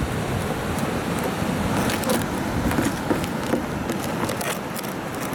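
Steady rush of surf and wind buffeting the microphone, heavy in the low end, with scattered clicks and rustles from the camera being handled, most of them in the middle.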